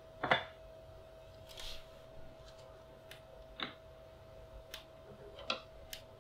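Light clicks and taps of resin statue parts being handled and fitted onto a quarter-scale statue and its throne, the loudest a few tenths of a second in, with a faint steady hum underneath.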